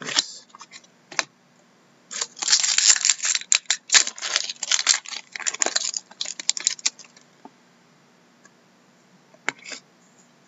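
Foil trading-card pack wrapper being torn open and crinkled: a dense run of crackling for about five seconds, with a few light clicks from cards being handled before and after.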